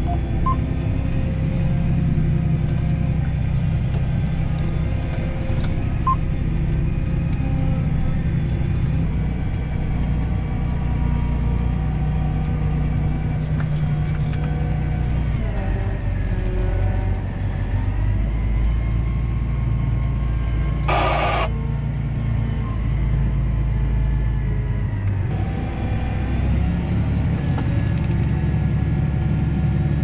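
John Deere tractor engine running steadily, heard from inside the cab; its note drops about halfway and picks up again near the end. A short higher-pitched tone sounds once about two-thirds through.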